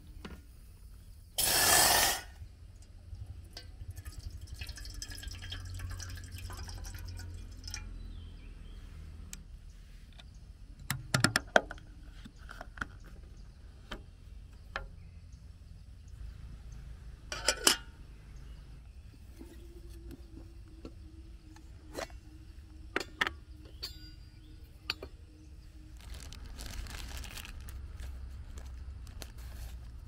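Water poured briefly from a plastic drinking bottle into an aluminium camping kettle, the loudest sound, about two seconds in; afterwards scattered sharp clicks and clinks of camp cookware being handled.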